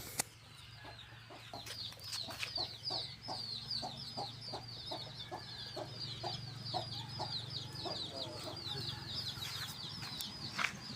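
Chickens clucking in a steady run of short clucks, over continuous rapid high-pitched chirping and a low hum. A sharp click comes at the very start and another near the end.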